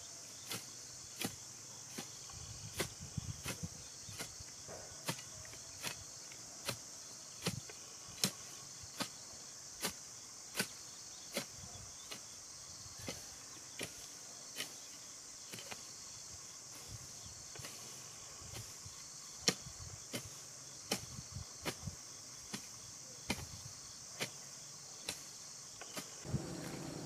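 A steady chorus of insects with sharp knocks repeating at an even pace, about every three-quarters of a second.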